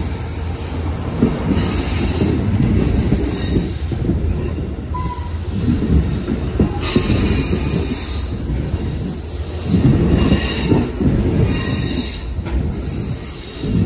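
Amtrak Superliner bilevel passenger cars rolling past close by, their wheels rumbling and squealing on the rails. The sound swells every second or two as each set of wheels goes by, with a short high squeal about five seconds in.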